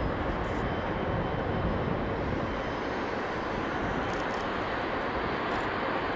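Boeing 777-300ER's GE90 turbofans running at low taxi power, a steady rushing hum as the jet turns to line up on the runway.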